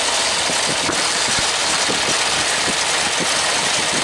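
1982 Dodge Power Ram's 360 V8 with a factory Carter Thermo-Quad carburetor idling steadily while cold, low and a little rough, the fast idle not kicking in. The owner suspects the choke is out of adjustment.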